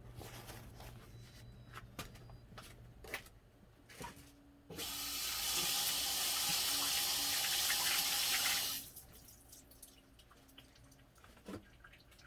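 Water running from a tap for about four seconds, starting about five seconds in and stopping abruptly. Small clicks and knocks of handling come before and after it.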